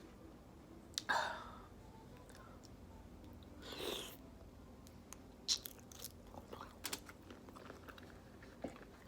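A person eating close to the microphone: wet chewing and mouth clicks. There are two longer noisy sounds, about a second in and near the middle, and a run of small sharp clicks through the second half.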